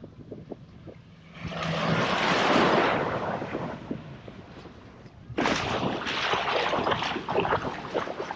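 Wind and surf on an open beach: a rush of noise swells about a second in and dies away by four seconds, then a harder, gusty rush with wind buffeting starts suddenly about five and a half seconds in.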